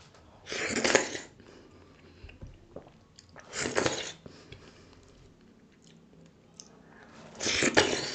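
Close-miked eating of dhido and sisnu: three loud mouthfuls about three seconds apart, with faint mouth clicks and chewing between them.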